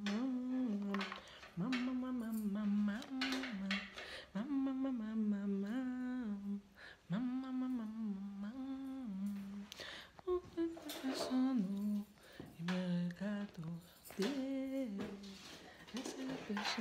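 A woman humming a simple tune with her mouth closed: short phrases that rock between two or three low notes, with brief pauses for breath between them.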